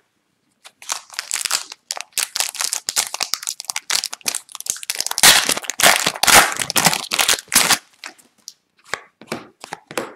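Foil-lined Upper Deck hockey card pack wrapper being torn open and crinkled, loudest about halfway through. Near the end come a few short clicks of the cards being handled.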